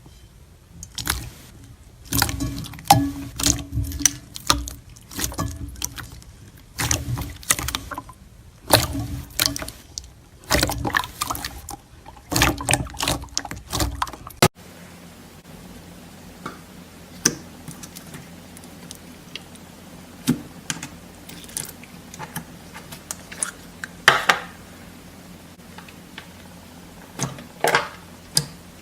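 Slime being squished and pressed by hand, making wet squelching and popping sounds in quick clusters. After a cut about halfway through, a quieter stretch follows with only a few scattered pops over a faint steady hum.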